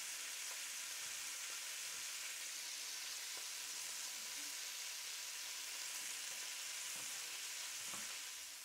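Fresh bratwursts frying in oil in a stainless steel pot, with a steady sizzle. A few faint knife taps on a wooden cutting board come through as the onion is diced.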